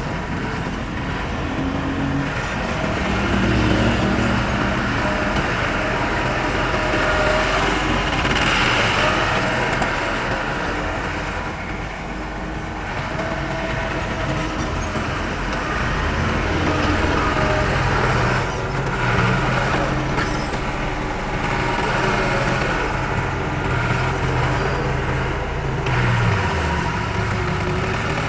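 Diesel engine of heavy earthmoving machinery, dump truck or bulldozer, running under changing load, its pitch rising and falling in places.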